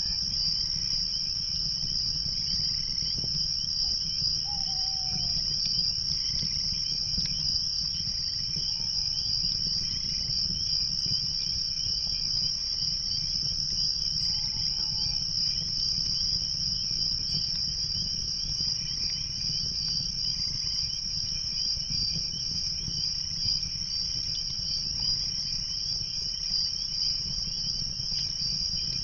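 Night chorus of crickets trilling steadily, over a low even rumble. A few short falling calls sound now and then, and a faint high chirp repeats about every three seconds.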